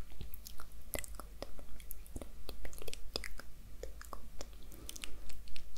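Close-up ASMR mouth sounds: a rapid, irregular run of soft wet clicks and smacks of lips and tongue.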